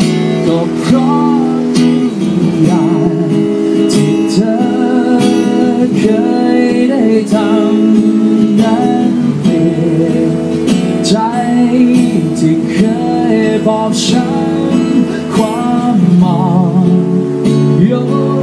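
A man singing a song while strumming an acoustic guitar, his voice coming through a microphone.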